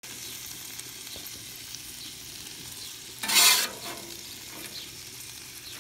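Bacon and ham frying on a Blackstone flat-top griddle: a steady, high sizzle. About three seconds in there is a brief, much louder burst of noise.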